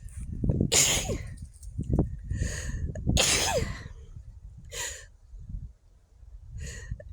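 A person sneezing twice, loud and sharp, about a second in and again about three seconds in, with shorter breathy, voiced intakes between and after the sneezes.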